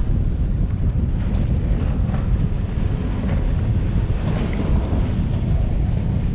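Strong wind buffeting the microphone in a steady low rumble, over the rush of waves and water around a sailing yacht under way in a stiff breeze.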